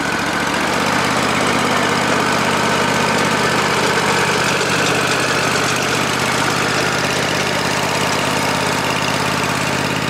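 Wood-Mizer portable band sawmill's engine running steadily.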